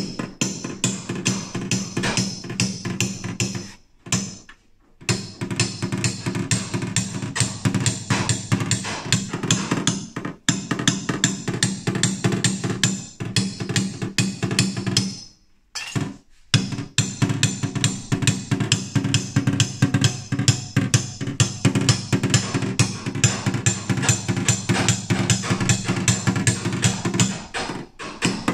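Background music with a drum kit beat and a steady bass line, broken by a few short pauses.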